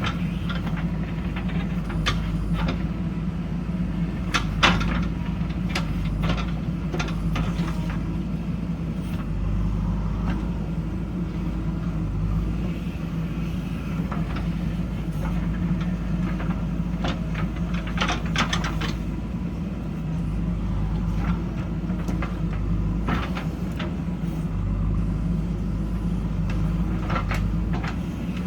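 JCB backhoe loader's diesel engine running steadily at working revs, with scattered knocks and clanks from the machine at work. The sharpest knock comes about five seconds in.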